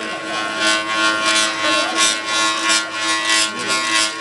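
A Chinese spouting bowl, a two-handled basin of water, humming as hands rub its handles: a steady hum of a few held tones under quick rasping strokes, about three a second. The rubbing sets the basin resonating and makes the water dance.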